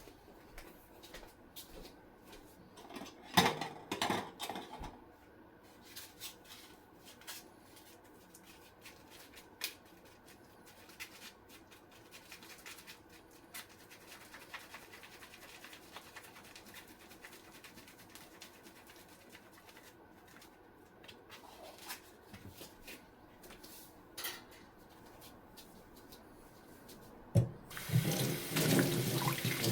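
Quiet kitchen handling sounds: scattered light clicks and knocks, with a louder clatter about three to four seconds in. Near the end a kitchen tap is turned on and water runs steadily into the sink.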